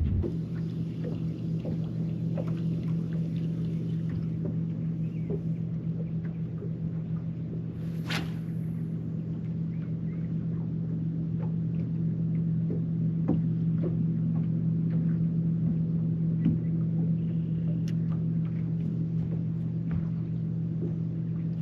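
Bass boat's outboard motor running at a steady speed, a constant low drone. About eight seconds in, a brief high sweeping sound rises above it.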